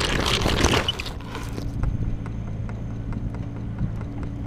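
Handling noise from the camera being tumbled and grabbed: rough rushing and rubbing for about the first second, then it settles into light irregular clicks and knocks over a faint low steady hum.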